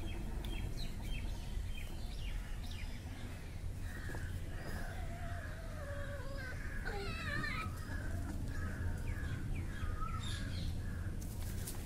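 Outdoor garden ambience: several birds chirping and calling, including a warbling call about seven seconds in, over a steady low rumble.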